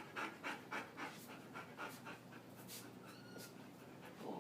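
Dog panting quickly, about four breaths a second, easing off about halfway through.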